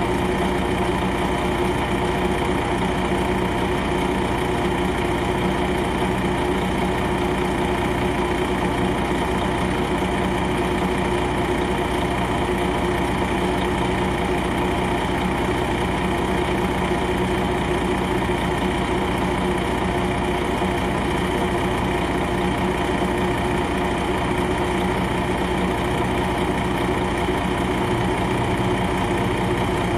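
Diesel engine of an MCI D4000 coach, a Detroit Diesel Series 60 inline-six, idling steadily as heard from on board the bus.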